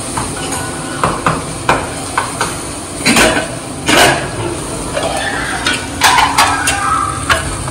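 Shallots sizzling in oil as they are stirred, over a run of metal clicks, clanks and scrapes as a pressure cooker lid is twisted open and lifted off.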